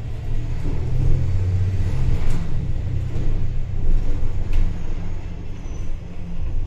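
City bus underway: a steady low engine drone and road rumble, briefly louder about a second in, with a few short knocks or rattles.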